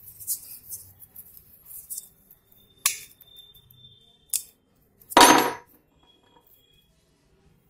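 Metal tools and freshly welded nails being handled at a bench vise: light clicks and clinks, a ringing metallic clink about three seconds in, another click a little later, and a louder short noise of about half a second just after five seconds.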